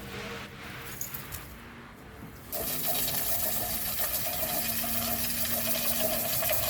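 Steady spray of water hissing on, starting about two and a half seconds in.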